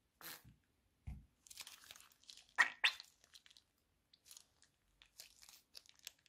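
Thick blue slime squeezed out of a cut plastic bag into a plastic tub: irregular wet squishes and plastic-bag crinkling, with the loudest pair of squelches about two and a half seconds in.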